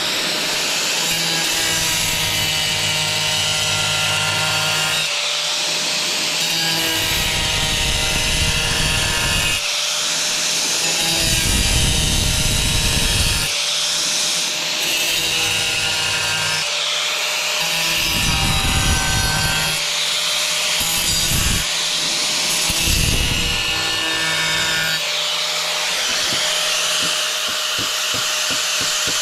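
Angle grinder running steadily while cutting a hole in a tile, taken slowly in repeated passes. A harsh grinding swells for a second or three each time the disc bites into the tile, then eases back to the motor's whine.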